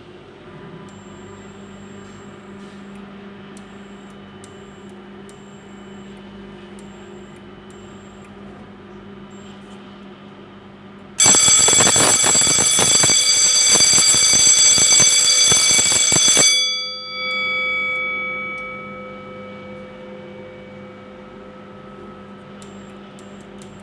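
Electric fire alarm bell ringing loudly for about five seconds about halfway through, its striker rattling rapidly on the gong, then stopping, with the gong ringing on and fading over the next few seconds. A steady low hum runs underneath throughout.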